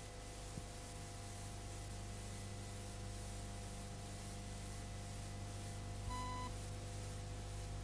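Steady hiss and low hum of an old videotape soundtrack, with one short electronic beep about six seconds in.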